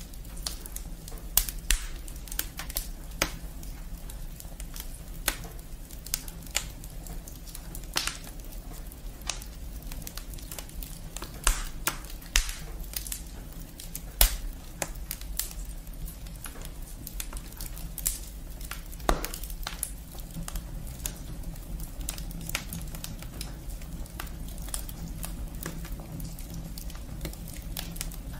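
Wood fire burning in a fireplace, the firewood crackling and popping in irregular sharp snaps over a low steady rumble.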